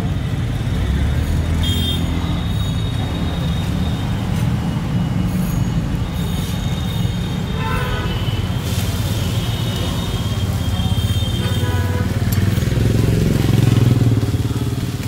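Steady low rumble of street traffic and motor engines, with a few short pitched sounds like distant horns.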